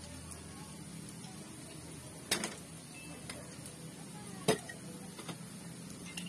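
Pot lid clanking twice against a metal cooking pot as it is lifted off and set down, two sharp knocks about two seconds apart with a short ring, over a faint low hum.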